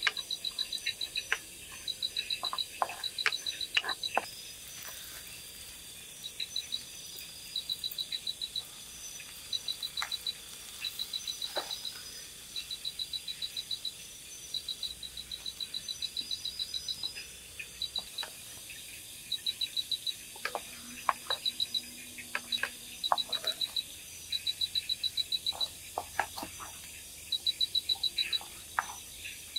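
A night-calling animal chirping over and over: quick trains of high pulses, each under a second long, repeating about once a second. Now and then a sharp click or scrape of a wooden spatula against a clay cooking pot.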